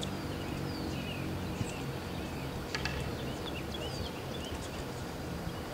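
Ambient noise with small birds chirping repeatedly in the background over a steady low rumble, and a couple of faint clicks.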